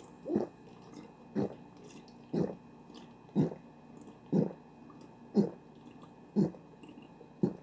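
A person gulping cola in eight regular swallows, about one a second.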